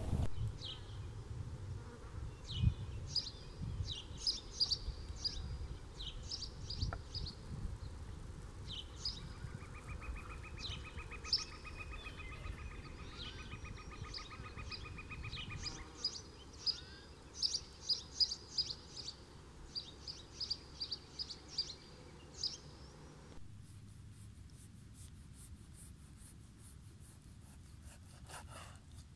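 Small birds chirping in short repeated phrases, with an insect buzzing close by for about six seconds in the middle. Near the end, faint sharp clicks of a kitchen knife slicing meat on a wooden cutting board.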